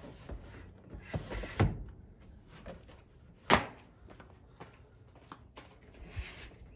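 A plastic storage tote sliding with scrapes and bumps into a wooden slot under a truck-bed sleeping platform, then a single sharp knock about three and a half seconds in.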